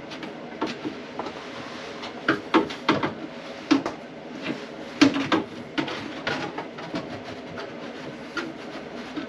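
Irregular knocks, clicks and clatter of hands and tools handling a Ford Mondeo ST220's plastic fuel tank and its fittings from underneath the car, while the tank is being worked up into position, over a faint steady hum.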